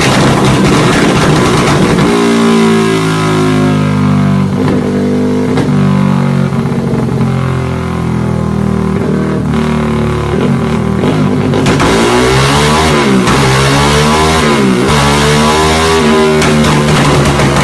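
Yamaha Y15ZR single-cylinder engine revving. It is held at steady, slowly sagging revs for several seconds, then blipped down and up repeatedly near the end.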